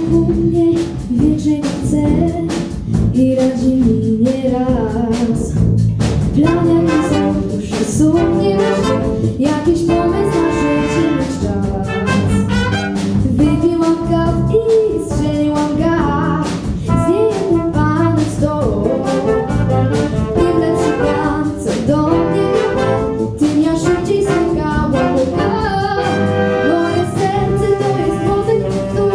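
A student big band playing a jazz song, with a young woman singing the lead into a microphone over saxophones, trombones, trumpets and flute.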